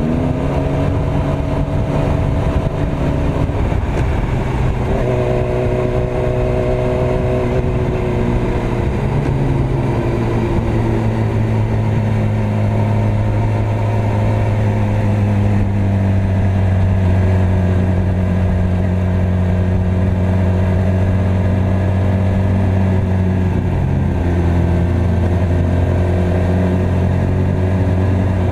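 Yamaha R6 sport bike's inline-four engine running under way at road speed. Its pitch shifts and glides a few times in the first ten seconds or so, then holds steady at a constant speed, and climbs again right at the end.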